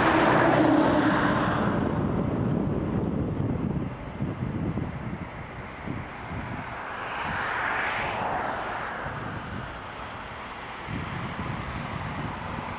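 Jet engines of a Boeing 767-300ER running at taxi power, a steady jet noise loudest in the first couple of seconds, easing off, then swelling again about seven to eight seconds in before settling.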